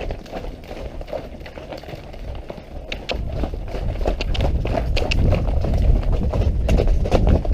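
Hoofbeats of a ridden horse cantering over a muddy track, heard from the saddle as uneven thuds over a low rumble. The hoofbeats and rumble grow louder about three seconds in.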